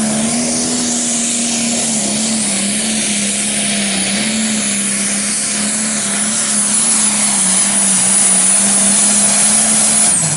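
Turbocharged diesel pulling tractor running at full throttle under load, a steady drone with a high turbo whistle over it, growing louder in the second half. Near the end the engine is shut off and its pitch drops away.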